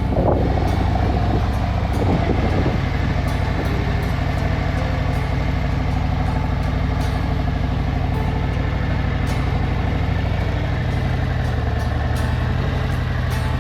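Harley-Davidson motorcycle's V-twin engine running steadily under way, with wind and road noise.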